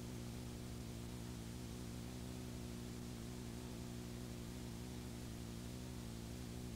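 Steady electrical hum with a stack of even overtones under a faint hiss, unchanging throughout: the sound of a blank stretch of videotape playing back.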